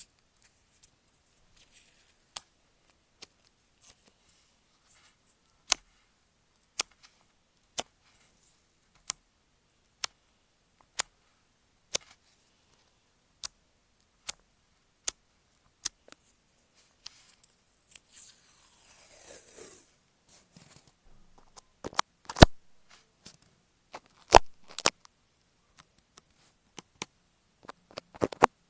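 Close-miked clicks and taps on masking tape stuck over an Apple EarPods microphone, about one a second. About two-thirds through there is a brief scratchy rub, and near the end come louder, quicker taps.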